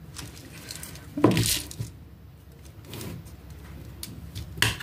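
Clinks and knocks of a plastic jar of Himalayan salt and a glass salt grinder being handled, with a louder knock about a second in and a sharp click near the end.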